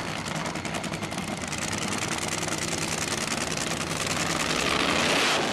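Drag-racing car engine running hard, a dense rapid crackle that grows louder toward the end and then cuts off abruptly.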